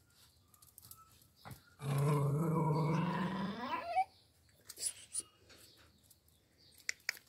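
A pet's low growl lasting about two seconds, rising sharply in pitch at its end, with a few light clicks afterwards.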